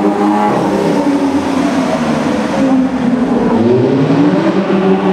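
Sports car engines revving and accelerating through a road tunnel, the sound echoing off the walls. The engine note drops as one car passes close about half a second in, and another car's revs climb steadily over the last second and a half.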